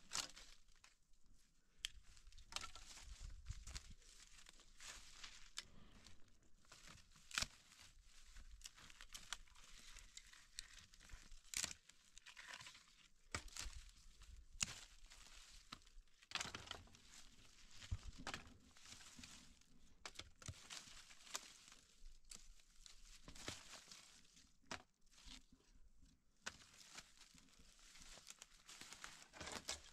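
Faint, irregular crackling and rustling of dry twigs and brush being handled, with scattered sharp snaps.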